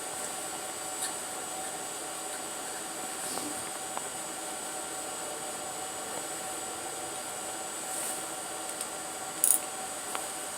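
Steady mechanical hum with a faint high whine, broken by a few light clicks and clinks of handling, and a short hiss about nine and a half seconds in.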